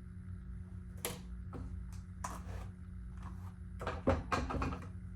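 Snap clips of clip-in hair extensions being clicked shut into the hair, with rustling of hair: several short clicks and rustles, a cluster of them near the end, over a steady low hum.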